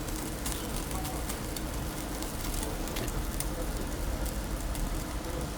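Meat sizzling over a charcoal grill: a steady hiss with scattered irregular pops and crackles.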